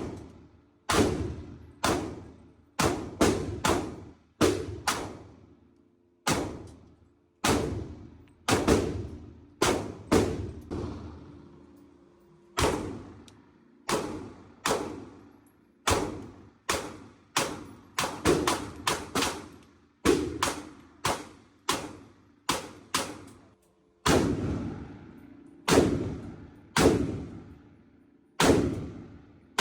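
Firearm shots fired one after another, around thirty of them at irregular spacing with some quick pairs, each crack followed by a ringing echo.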